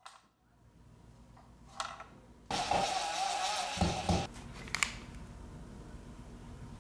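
Yellow-and-black cordless drill/driver running for about two seconds, driving a screw to fasten a plastic electrical box in the wall, with a couple of knocks near its end. A short click comes before it and another just after.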